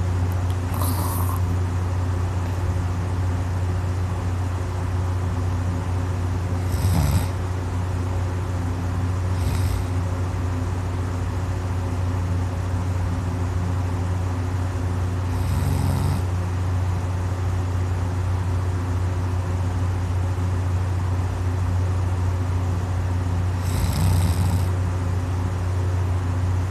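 A person snoring in a heavy, drunken sleep: three strong snores roughly eight seconds apart, with fainter breaths between, over a steady low hum.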